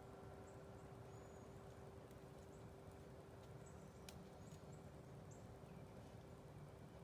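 Near silence: a faint low rumble and a steady hum, with a few faint high chirps and one faint click about four seconds in.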